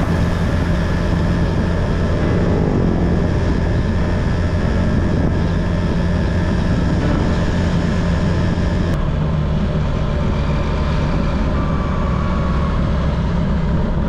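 Motorcycle engine running steadily at cruising speed, with continuous wind and road noise from riding.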